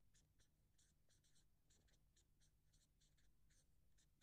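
Very faint scratching of handwriting: short, irregular strokes about three or four a second, over a low steady hum.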